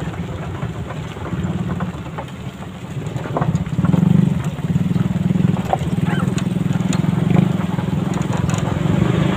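Small motorcycle engines from a convoy of underbone bikes and a dual-sport bike riding together: a steady low engine drone that grows louder about four seconds in.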